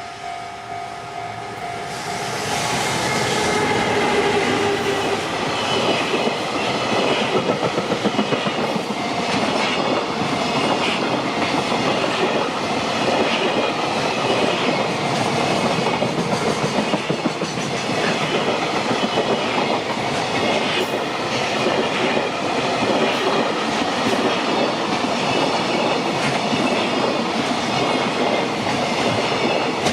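A level-crossing warning bell rings at first. About two seconds in, a JR Freight train passes close by and builds to a loud, steady rumble, with wheels clattering over the rail joints as the wagons go by.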